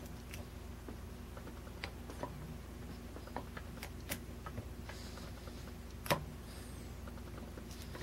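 Faint scattered metallic ticks and clicks of a hook pick working the spring-loaded pins of a 50 mm Chubb padlock under tension, with a sharper click about six seconds in.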